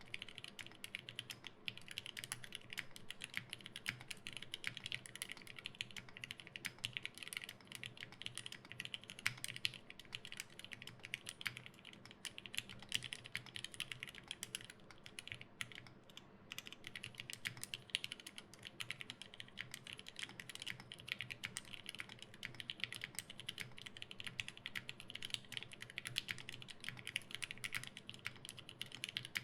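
Continuous typing on an LZ Physix mechanical keyboard with lubed linear switches (Gateron Yellow stems in opaque Gateron Black housings), an FR4 plate and GMK keycaps: a steady stream of key clicks, thinning briefly about halfway through.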